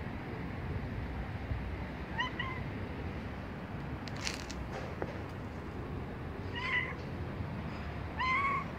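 A cat meowing three times in short calls, the last one near the end the loudest.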